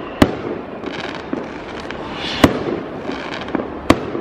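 Fireworks going off: three sharp bangs, the loudest about halfway through, with a few smaller pops between them.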